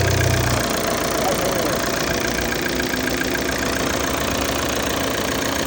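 Volvo V40 engine idling just after a restart, settling to a steady idle about half a second in.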